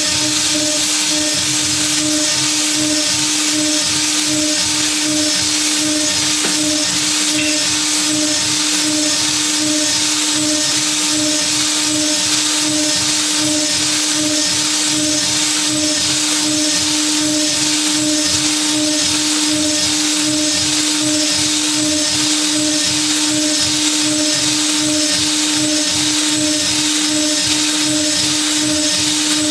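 DIY CNC router's spindle milling aluminium: a steady high-pitched whine that pulses evenly, over a constant hiss.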